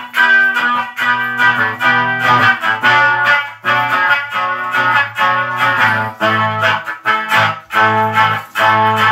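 Electric guitar strummed in a steady rhythm of chords, with the low notes ringing strongly under them and no singing.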